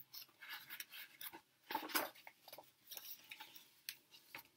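Soft paper rustling and handling noises as a picture book's page is turned, with short crinkles and clicks, the loudest about two seconds in.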